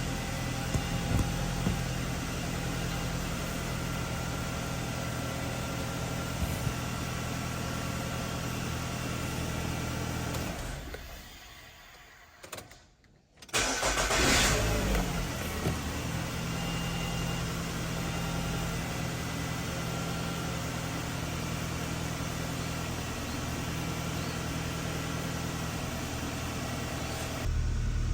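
Nissan X-Trail T30's QR25 2.5-litre four-cylinder engine running steadily, then fading away; after a brief silence it starts up at once, the revs flare and settle back into a steady idle. A quick, clean start with no crank-sensor fault code present.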